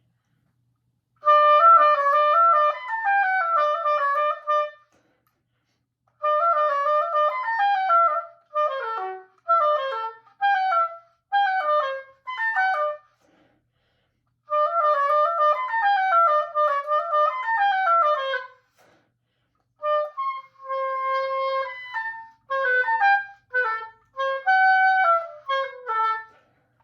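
Solo oboe playing four practice phrases of quick notes separated by short breaks, with many runs falling in pitch.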